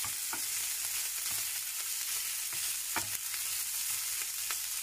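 Chopped boiled chicken sizzling steadily as it fries in a little oil, starting to brown. It is being stirred, with a few sharp knocks of the utensil against the pan.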